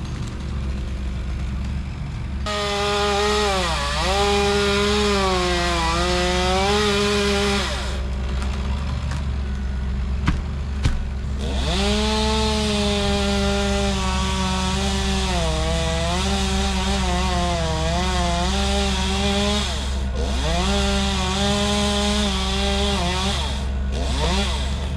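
Two-stroke chainsaw cutting into a tree in three long runs at full throttle. Its pitch dips and recovers as the chain loads up in the wood. A steady low engine drone runs underneath.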